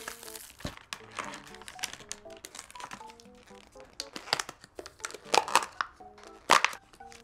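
Thin plastic wrap crinkling as it is pulled off a takeout bowl, and plastic lids snapping off small takeout containers. There are several sharper crackles in the second half, the loudest near the end.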